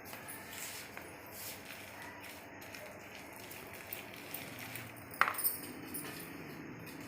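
Metal kitchen utensils clinking and scraping while pakoras are being made, with one sharp clink about five seconds in.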